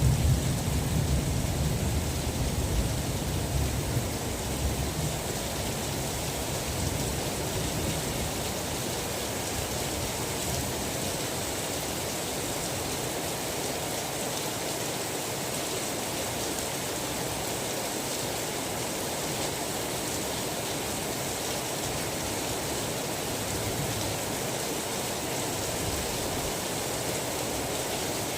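Steady heavy rain hiss, with a low rumble of thunder at the start that fades away over the first several seconds.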